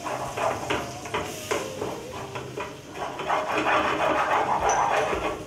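Wooden spatula stirring and scraping flour and melted butter around a non-stick frying pan in quick repeated strokes, with a light sizzle of frying underneath.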